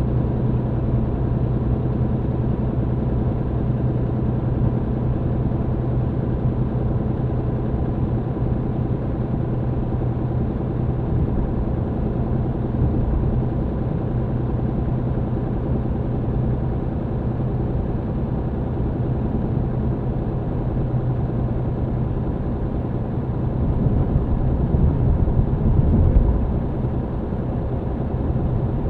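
MAN TGX truck's diesel engine running steadily under way, heard inside the cab with road noise. Near the end a louder, rougher low rumble swells for about two seconds, then drops back.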